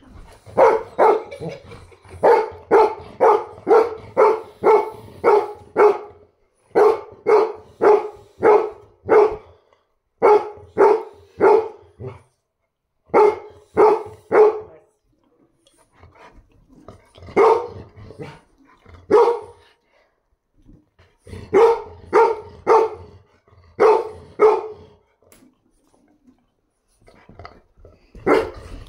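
A dog barking in quick runs of sharp barks, about three a second, with short pauses between runs; the barking thins out for a few seconds around the middle and stops briefly shortly before the end.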